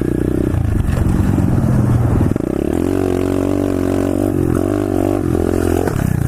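Pit bike engine running under throttle, its pitch rising and falling as it is revved.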